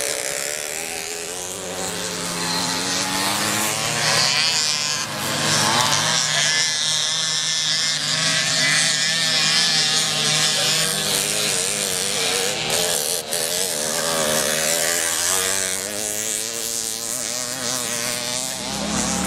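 Small two-stroke engines of retro mopeds buzzing and revving around a dirt motocross track, several at once, their pitch rising and falling as the riders accelerate and ease off.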